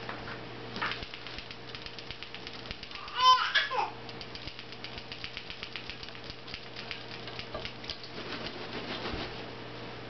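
A pet parrot gives one short whistled call about three seconds in, sliding down in pitch. It is followed by several seconds of rapid, light clicking and tapping.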